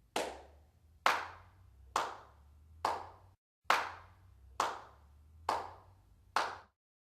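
Slow, single hand claps, eight in all, about one a second. Each clap has a short echoing tail.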